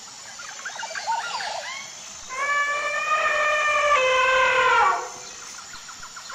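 Elephant trumpeting: a quick flurry of short squeaky, warbling calls, then one long brassy trumpet held for about two and a half seconds that drops in pitch as it ends.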